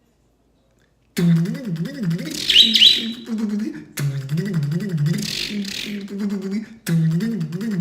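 A man's voice doing engine sound effects, a mouth-made imitation of an engine cranking without starting, in three goes that each start abruptly, the first about a second in. A pet bird chirps briefly about two seconds in.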